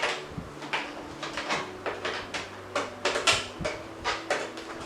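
Irregular plastic clicks, taps and rustles as a long monitor cable is handled and plugged into the monitor's ports, with about a dozen short knocks of varying loudness, the loudest a bit past the three-second mark.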